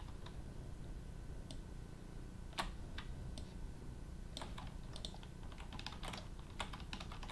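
Computer keyboard keys and mouse buttons clicking in short, irregular taps, shortcut presses while moving and snapping mesh pieces in 3D modelling software.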